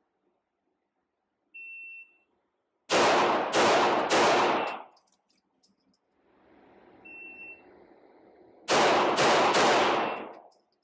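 A shot-timer start beep, then three quick pistol shots from a Laugo Arms Alien Creator 9mm, echoing in an indoor range. A second beep a few seconds later is followed by another fast string of three shots.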